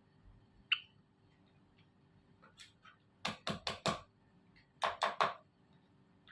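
Zebra finches calling: one short chirp near the start, then a quick run of four short calls and, about a second later, three more.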